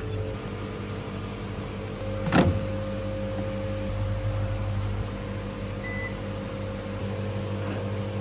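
Steady hum of a running household electric appliance, with a single knock about two and a half seconds in.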